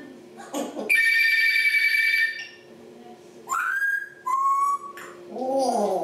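African grey parrot whistling: one long steady whistle starting about a second in, then two shorter whistles, the first rising, and a brief voice-like call near the end.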